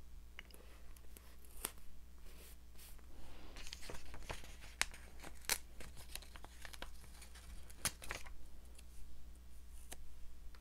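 Stickers being peeled off their backing sheet and handled on paper: short crackly peeling and rustling sounds with scattered light clicks and taps, busiest in the middle.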